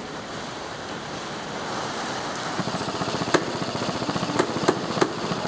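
Electric airsoft gun firing on full auto, a fast stream of shots at roughly fifteen a second starting nearly three seconds in. Four sharp cracks stand out near the end, over a steady noisy background.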